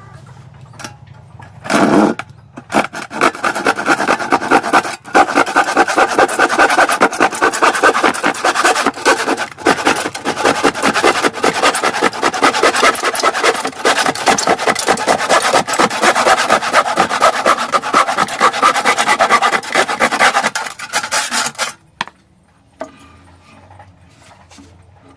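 Hasston 20-inch Jet Cut hand saw cutting through wood in rapid back-and-forth strokes. It starts about two seconds in, pauses briefly, then runs on until it stops near the end.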